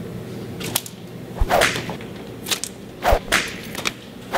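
A string of about eight sharp slaps, one after another at an uneven pace, a few with a low thud underneath.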